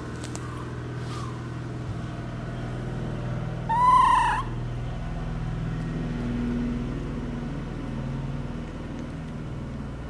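A small animal gives one short, high-pitched cry about four seconds in, over a steady low hum.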